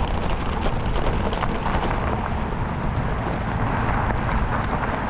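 Fat bike riding over a light, dry snow cover: the wide tyres roll with a steady rushing noise full of small clicks and crunches, and wind rumbles on the microphone.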